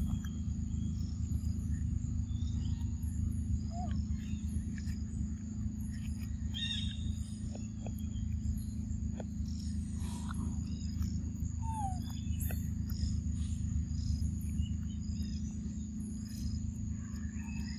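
Forest ambience: a steady high-pitched insect drone over a constant low rumble, with scattered short chirps and a few soft clicks.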